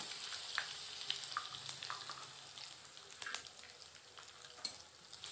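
Hing (asafoetida) sizzling in hot cooking oil in a metal kadai, with a spatula stirring it at first. A steady hiss runs through scattered small crackles and slowly grows quieter, with one sharper click near the end.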